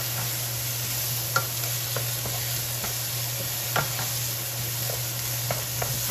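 Sliced bell peppers, onions and halved cherry tomatoes sizzling in olive oil in a frying pan, stirred with a wooden spatula that scrapes and taps against the pan a few times.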